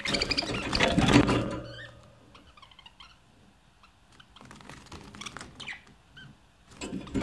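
Budgerigars chattering and warbling: a loud burst of rapid chirps in the first second or two, scattered quieter chirps in the middle, and another loud burst near the end.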